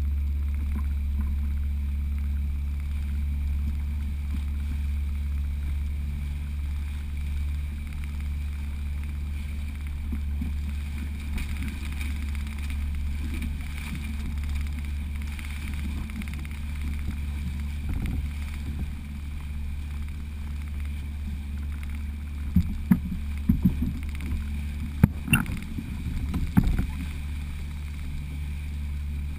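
Outboard motor of a small open fishing boat running at a steady, unchanging pitch under way, with wind and water noise over it. A cluster of sharp knocks and clunks comes near the end.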